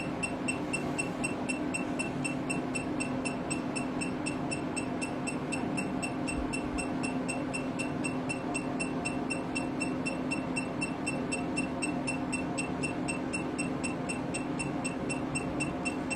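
Cosmetic facial laser firing: rapid, evenly spaced ticking of the pulses several times a second over the steady hum of the laser machine.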